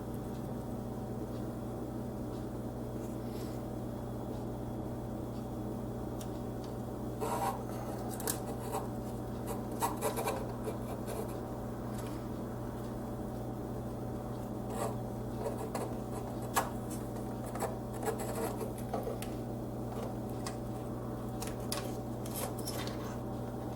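A motherboard being handled and slid into a PC case: scattered short scrapes, rubs and light clicks of the board against the case and I/O shield, starting several seconds in. A steady low hum underlies them throughout.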